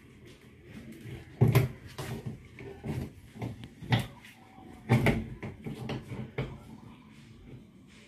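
Irregular knocks and clunks of the plastic parts of a single-tub washing machine being gripped and worked by hand. The loudest knocks come about a second and a half in and again near four and five seconds.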